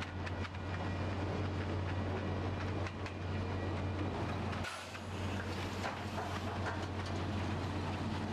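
Heavy machinery running with a steady low hum and rattle, dipping briefly about halfway through.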